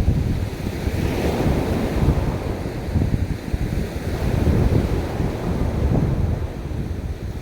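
Sea waves washing on a beach, mixed with heavy wind buffeting the microphone, a continuous rumbling wash that swells and eases.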